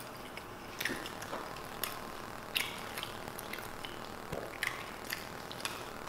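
Quiet eating sounds: a burrito being chewed and its wrapper handled, heard as a scatter of short, soft clicks and crackles.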